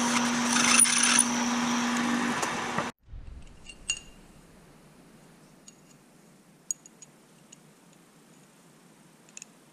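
Milling machine running, its drill bit boring through a metal plate clamped to the table with a steady motor hum; it cuts off suddenly about three seconds in. After that come a few light metallic clinks as the drilled plate is handled at a bench vise.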